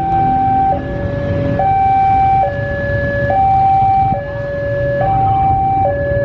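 Railway level-crossing warning alarm sounding a steady two-tone hi-lo signal, switching between a higher and a lower tone just under once a second, warning of the approaching train. A low rumble from the approaching diesel locomotive lies underneath.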